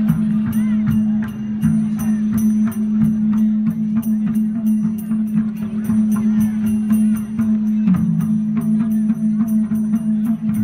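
Live stage music with a steady drum beat, jingling, and a low drone held underneath throughout.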